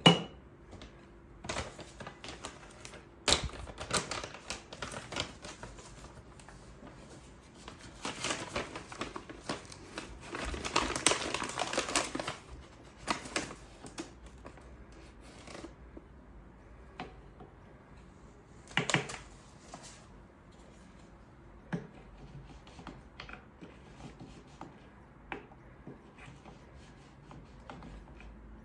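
Household objects being handled in a small room: scattered clicks and taps, with a longer stretch of rustling or rubbing in the middle.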